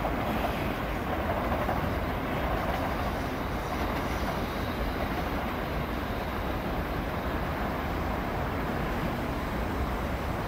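Third-rail electric multiple unit running along curved track as it draws away, a steady, even rail noise that eases slightly toward the end.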